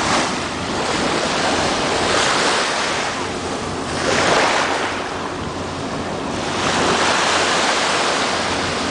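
Small sea waves breaking and washing onto the shore, swelling in soft surges every two seconds or so.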